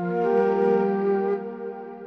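Slow instrumental devotional music: a held, sustained chord that shifts to new notes just after the start, then slowly fades.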